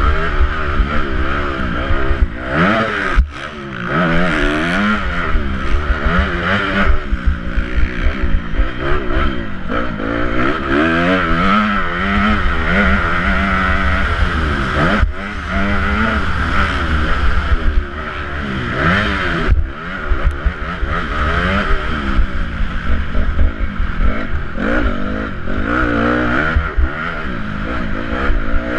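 Motocross bike engine racing around a dirt track, heard from the rider's helmet camera: the revs climb and fall over and over through gear changes and throttle cuts, over a steady low rumble.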